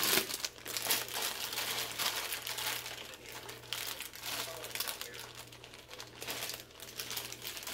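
A chocolate chip bag crinkling as it is handled and reached into: a dense run of rustles that starts suddenly and keeps on.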